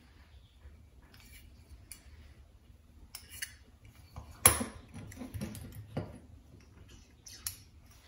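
Small clicks, clinks and knocks of metal parts and a hand-pump pressure tester being handled on a workbench as its hose is fitted onto a small-engine carburetor. The loudest is a single sharp knock about halfway through.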